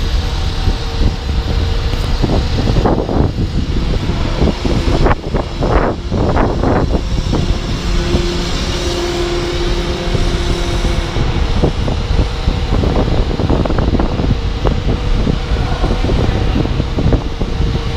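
Steady low rumble of engines and city street noise, with wind buffeting the microphone; a heavy diesel such as the working crane's is among the likely sources.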